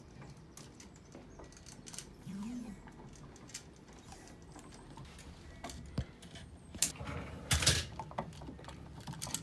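Hands working on a wall light switch's wiring and electrical tape: scattered small clicks and rustles, with a louder brief rasp and a few sharp clicks near the end.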